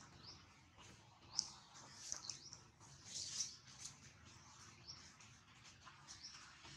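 Birds chirping faintly: scattered short, high chirps with quick pitch sweeps, the sharpest about one and a half seconds in.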